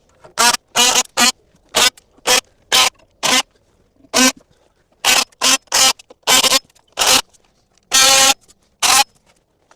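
Oscillating multi-tool with a carbide-tipped Diablo blade cutting through finish nails in about fifteen short buzzing bursts. The longest cut comes about eight seconds in.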